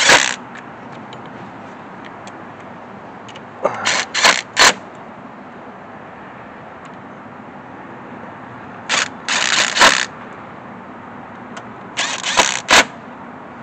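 Four short flurries of clattering and scraping, like tools or metal parts being handled, over a steady background hiss.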